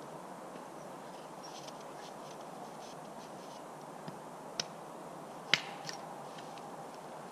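Scattered sharp clicks and snaps over a steady hiss, the loudest about four and a half and five and a half seconds in.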